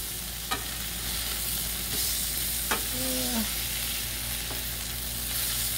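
Tri-tip steaks sizzling in ghee on a Blackstone flat-top griddle, a steady hiss, with a few light clicks of a metal spatula on the griddle plate as the steaks are worked.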